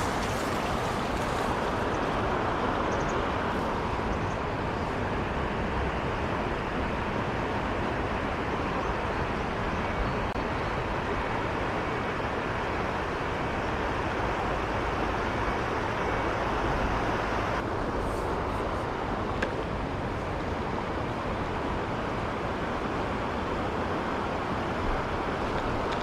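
Mountain stream water rushing over rocks: a steady, even rush, its higher hiss dropping slightly about two-thirds of the way through.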